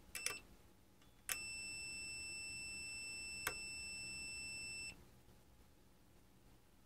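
Fluke 8060A multimeter's continuity beeper: a couple of clicks as the probes make contact, then a steady high beep of about three and a half seconds that cuts off. The beep sounds only while the newly fitted electrolytic capacitor charges from the meter's test current, so there is no real short.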